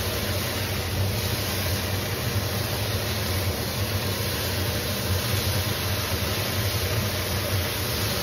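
Green beans sizzling in a skillet over a high gas flame: a steady hiss over an even low hum.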